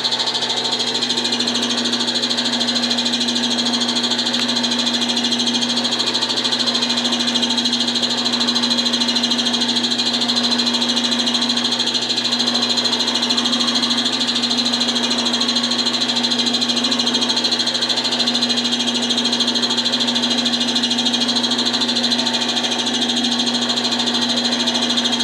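Wood lathe running steadily at speed: a constant motor hum with a high whine, while a piano wire is held against the spinning wooden bottle-stopper blank to burn dark lines into it.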